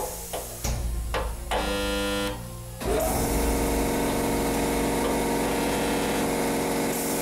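Background music: short pitched notes for the first few seconds, then a steady sustained hum of several tones from about three seconds in.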